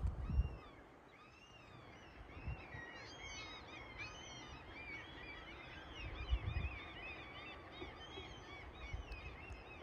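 A flock of birds chirping, with many short, high calls overlapping into a busy chatter that thickens after the first second or so. There are a few brief low thumps, the loudest at the very start.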